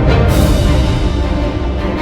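Background music in a dramatic theme style, with held low tones and a loud hit about a quarter of a second in.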